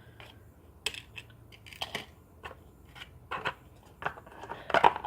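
Scattered light clicks, taps and brief rustles of small items being handled and set down, with a louder cluster of clicks near the end.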